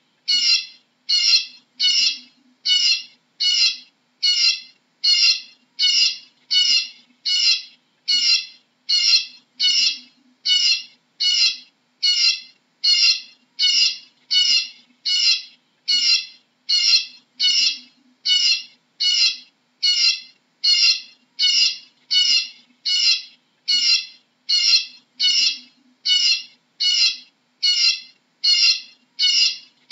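Eurasian bullfinch calling: short calls repeated at a very even pace, about three every two seconds, over a faint low hum.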